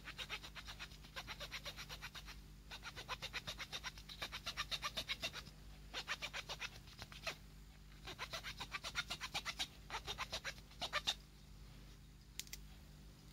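Wooden pencil being sawn with the saw-toothed spine of an AKM bayonet knife: quick rasping back-and-forth strokes, about six a second, in short runs with brief pauses, stopping about eleven seconds in.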